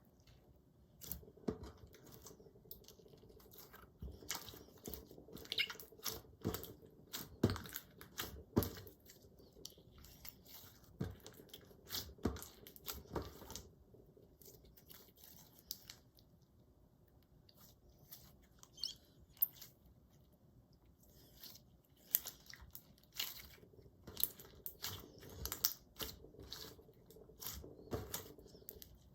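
Slime being pressed, squeezed and poked by hand, giving irregular crackling clicks and small squishy pops, with a thinner spell partway through.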